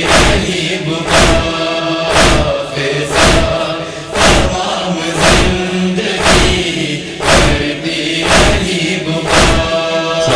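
A Shia noha interlude: rhythmic chest-beating (matam) thuds, about one a second, some in quick pairs, under a chorus of voices chanting a held, droning line.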